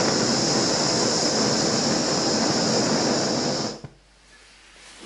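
Hand-held gas blowtorch on a screw-on cylinder burning with a steady hiss as its flame heats a copper solder-ring elbow fitting until the solder melts around the joint; the torch is shut off just under four seconds in and the hiss stops abruptly.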